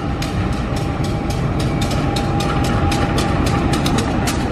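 Diesel-hauled passenger train rolling slowly into the station: the locomotive's engine rumbles under a quick run of sharp wheel clicks over rail joints, with a thin steady whine above, growing louder as it draws alongside.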